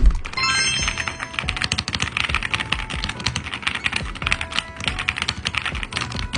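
Rapid typing on a mechanical keyboard with linear switches: a dense, fast run of key clicks. A short rising chime rings about half a second in.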